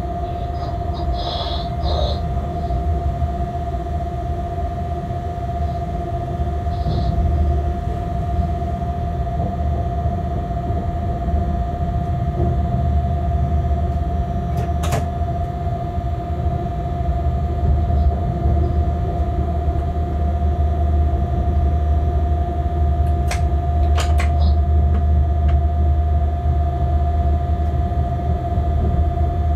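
Locomotive running light along the track, heard from the cab: a steady low rumble with a constant hum, and a few sharp clicks a little past halfway.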